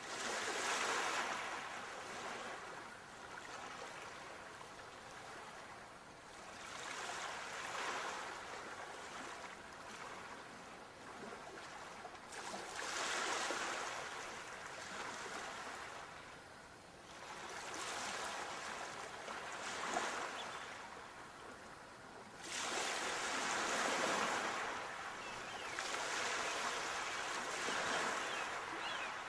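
Sea waves washing ashore, each one swelling up into a rushing hiss and falling away again, about every five seconds.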